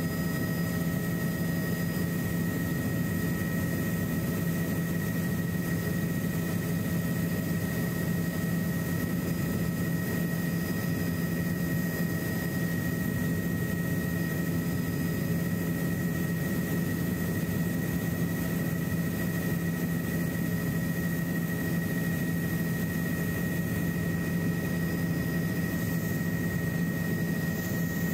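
Helicopter in cruising flight heard from inside the cabin: a steady drone of engine and rotors, with a strong low hum and a thin high whine over it.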